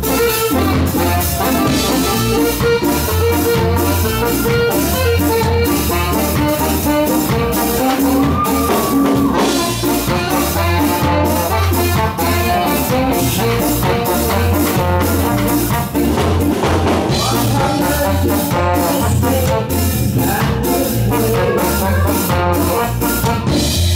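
Live ska band playing, with a horn section of trombone and saxophone over electric guitars and a drum kit keeping a steady beat.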